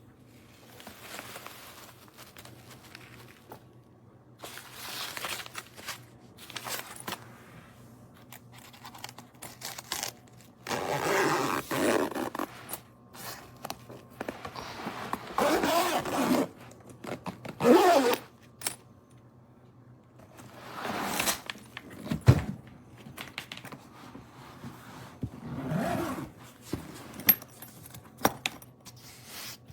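Irregular handling noises of hard-shell luggage: scraping, rustling and jangling in bursts of a second or two, with a sharp knock about two-thirds of the way through.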